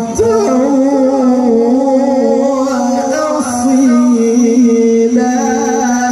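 A man reciting the Quran in the melodic tilawah style through a microphone, holding long sung notes that waver in ornamented melismatic turns.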